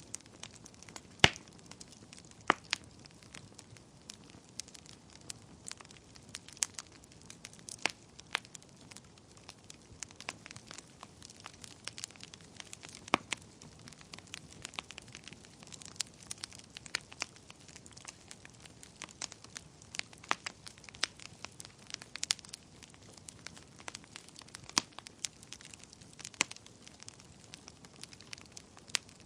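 Wood fire burning in a fireplace, crackling steadily with irregular sharp pops over a low hiss; the loudest pops come about a second in, again a second later, and near the middle.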